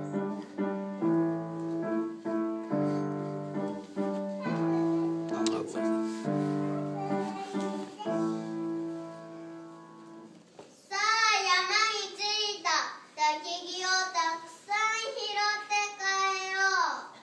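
Piano playing slow, sustained chords for about ten seconds, then stopping. A child's high voice then sings alone for about six seconds, its pitch bending up and down, ending on a falling note.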